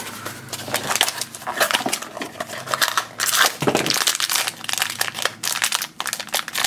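Cardboard blind box handled and opened, then the foil blind-bag pouch inside crinkling and tearing as it is pulled open by hand: a dense, irregular crackle.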